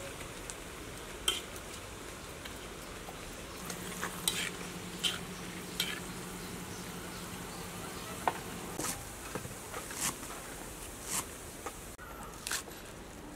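Spiders deep-frying in hot oil in a metal wok: a steady sizzle, with metal tongs and a spatula clicking and scraping against the wok as they are stirred during a second fry to make them crispy. Near the end come a few knife taps on a wooden chopping board.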